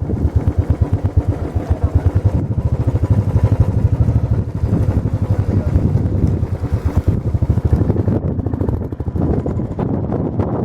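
Motorcycle engine running, with wind rumbling and buffeting on the microphone.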